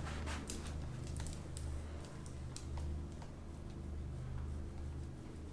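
Light, irregular clicks and ticks, several a second, over a steady low hum.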